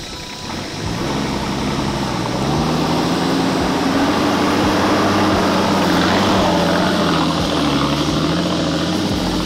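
Nissan Patrol GU (Y61) engine working under load as the four-wheel drive climbs a rocky hill. It grows louder about a second in, rises in pitch a second or so later, then holds a steady drone.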